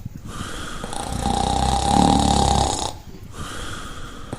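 A person snoring: one long, loud snore about a second in, lasting roughly two seconds, with quieter breathing before and after it, repeating in a slow regular cycle.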